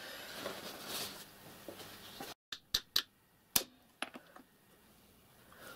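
A sheet of paper rustling as it is handled, then a few sharp knocks of a ball-pein hammer on a steel letter punch, stamping a letter into a brass plate. The knocks come over about two seconds in the second half, the loudest near the middle.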